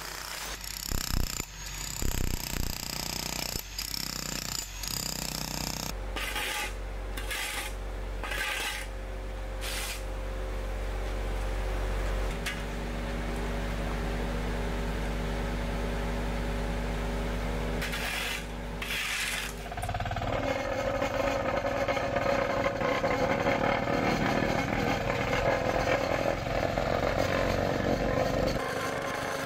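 Steel shovels scraping and spreading hot asphalt around a manhole frame, over a steady engine hum. From about two-thirds of the way in, a louder machine sound runs until shortly before the end.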